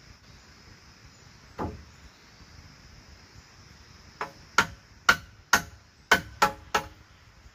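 Hand tool striking a nail into a rough-sawn wooden plank: one blow, then after a pause a run of seven sharp blows at about two a second, each with a short woody ring from the board.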